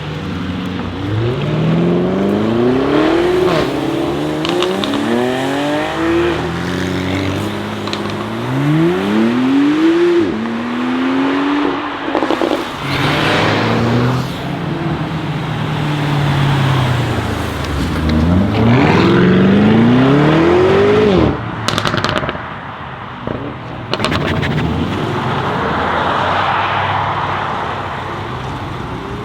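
Lamborghini Urus Performante's twin-turbo V8 with Akrapovic exhaust accelerating hard, its revs climbing and dropping back through a series of upshifts, with sharp exhaust pops near the end of the last pull.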